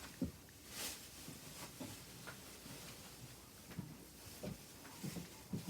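Quiet room with a few faint, scattered light taps and handling noises, and a short hiss-like burst about a second in.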